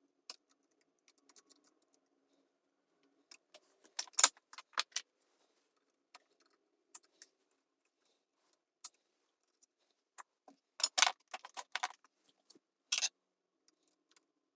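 Sharp small metallic clicks and clinks of hand tools working on the wiring inside a tube amplifier chassis during resistor replacement, heard sped up. They come scattered, with dense clusters about four seconds in, around eleven seconds and near the end.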